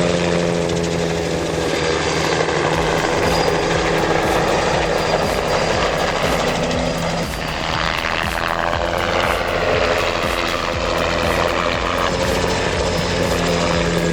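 Helicopter flying close by, its rotor beating in a steady, loud chop with the turbine's hum underneath, the sound shifting briefly about seven to eight seconds in.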